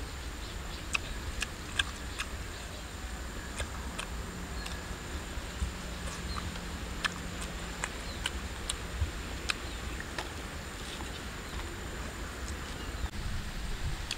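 Mouth sounds of someone eating saucy pork with the hands: irregular wet clicks and smacks of chewing and lip-smacking, over a low steady rumble.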